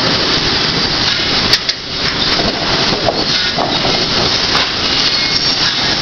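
Sawmill machinery running with a loud, steady noise, and a sharp bang about one and a half seconds in.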